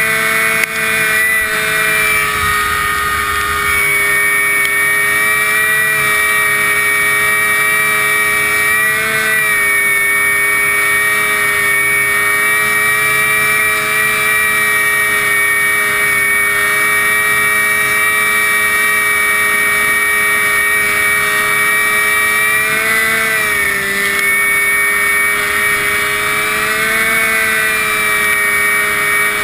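Riding lawn mower engine running steadily at high speed through a tall upright exhaust stack. Its pitch dips briefly and recovers about nine seconds in, and again twice near the end.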